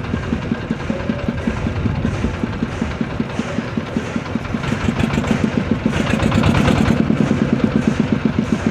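A boat's diesel engine running with a steady, rapid pulse. It grows louder about two-thirds of the way through.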